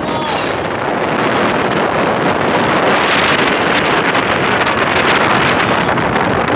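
Wind buffeting a phone microphone in the open back of a moving vehicle, a loud steady rush with road noise underneath.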